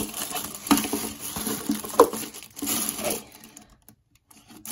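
Hands handling enclosure-kit parts and their packaging: crinkling and light tapping, with a couple of sharp knocks about a second and two seconds in.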